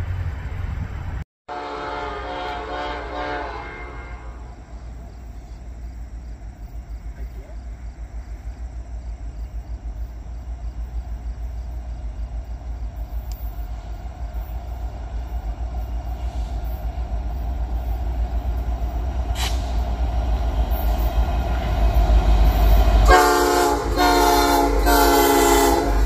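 CN freight diesel locomotives approaching: the train horn sounds for a couple of seconds early on, then the low engine and rail rumble grows steadily louder as the train nears. Near the end the horn blasts loudly for about three seconds as the locomotives come alongside.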